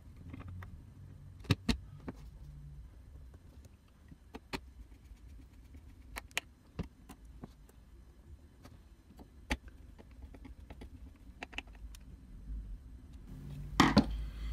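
Scattered faint clicks and taps of a small screwdriver and screws against a metal mounting plate, a few seconds apart. Near the end comes a louder scrape and clatter of the parts being handled.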